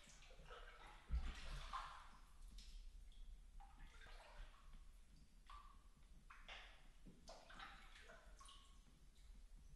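Faint splashing and dripping as a double-bladed kayak paddle dips into still water, stroke after stroke, in a flooded cave passage. There is a low thump about a second in.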